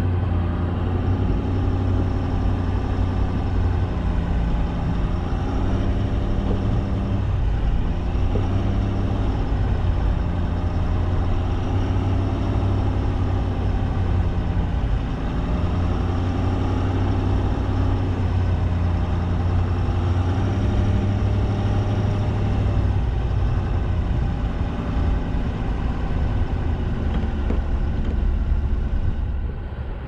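Plow truck's engine running steadily as it drives the snowy road, heard close from the hood. It makes a low, even hum that rises and falls slightly in pitch.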